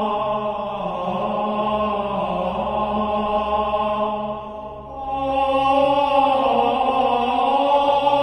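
Music of choral chanting in long held notes. It fades briefly about four and a half seconds in, then swells back louder.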